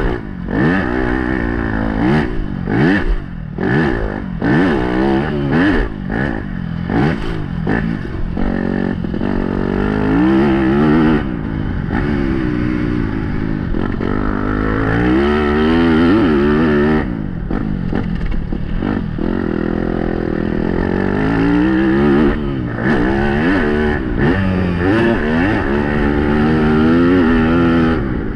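Yamaha YZ250F four-stroke single-cylinder motocross bike engine revving hard, its pitch climbing and dropping again and again as the throttle opens and closes.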